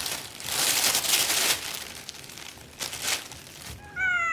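Bursts of rustling, crinkling noise, then near the end a cat begins a long meow that falls in pitch.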